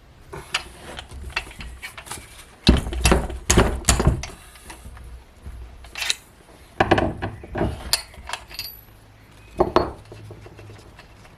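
Metal parts and hand tools being handled: irregular clinks and knocks in three clusters, the loudest about a third of the way in.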